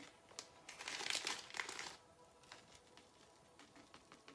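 Plastic bag of dried herbs crinkling as it is handled over a jar, a burst of crackling lasting about a second, starting near a second in.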